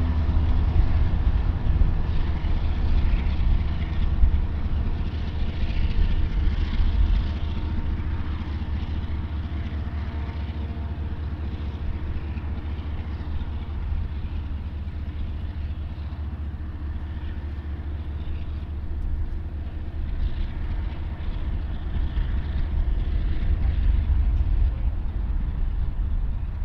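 Union Pacific freight train's diesel locomotives moving away, their engine drone fading over the first several seconds, over a steady low rumble.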